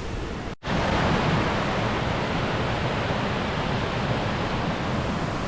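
Steady rushing of the waterfall and mountain stream, briefly cut off about half a second in, then continuing evenly.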